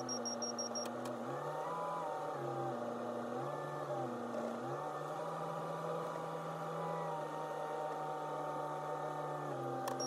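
Backhoe loader's diesel engine running, its speed stepping up and down several times as the loader is worked.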